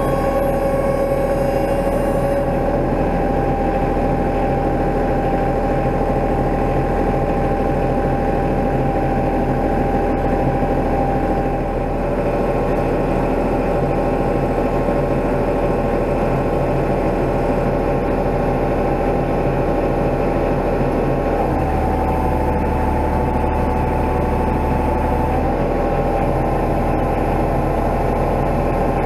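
Kubota KX91-3 mini excavator's diesel engine running steadily at idle, warming up after a hydraulic oil change. Its note changes for a few seconds near the end, then settles back.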